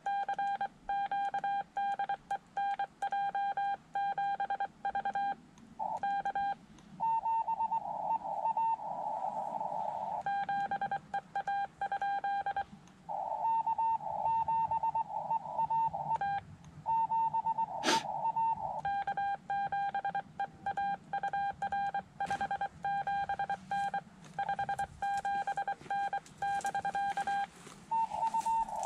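Morse code from the Xiegu X5105 transceiver: a single mid-pitched tone keyed on and off in dots and dashes. In some stretches the tone sits inside a band of hiss from the radio's narrow CW filter. A sharp click comes about 18 seconds in.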